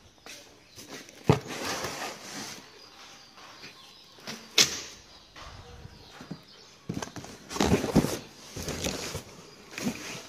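Cardboard boxes being handled: a few sharp knocks, the loudest about a second in, near the middle and about eight seconds in, with scuffing and rustling between them.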